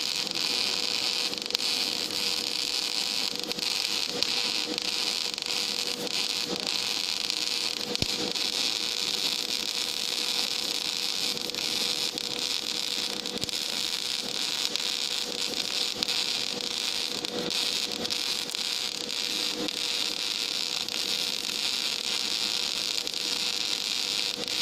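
Gas metal arc (MIG) welding arc burning steadily along a plate joint: an even, crackling hiss with small pops, over a faint steady hum.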